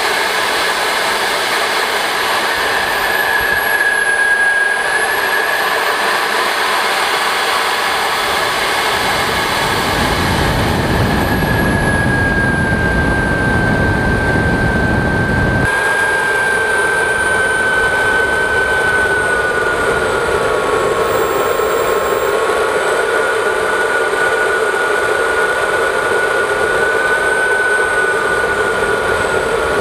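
Model jet turbine whining steadily in flight, its pitch drifting down and up with the throttle, over a constant rush of airflow on an onboard camera. A low rumble joins in for several seconds midway, from about ten to sixteen seconds in.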